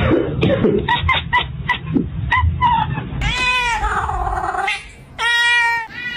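A cat meowing: a quick string of short chirping calls, then two longer meows, the first falling in pitch.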